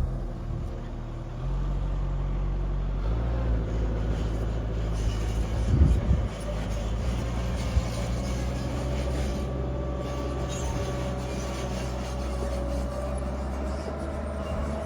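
Low steady drone of a running motor, stepping up in level a couple of times early on, with a short louder noise about six seconds in.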